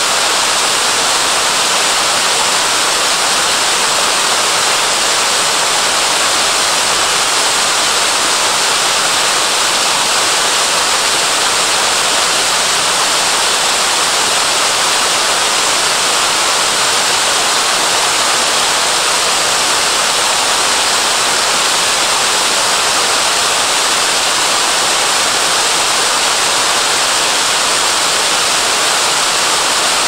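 Waterfall spilling over a low dam and down ice-covered rocks: a loud, steady rush of falling water.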